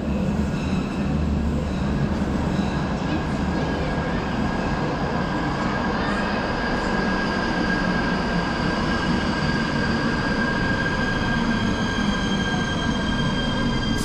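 Train running on the rails with a steady rumble and high, steady squealing tones over it, typical of wheels squealing on the track.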